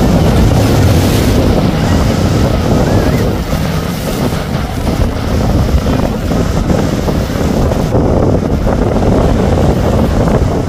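Powerboats running at speed, engines going over the splash and hiss of hull spray on choppy water. Wind buffets the microphone.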